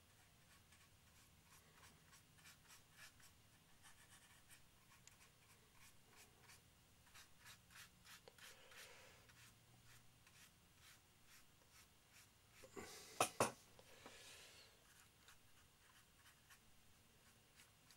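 Faint scratchy strokes and light ticks of a fine paintbrush working paint onto a plastic model kit, with two sharper taps close together about thirteen seconds in.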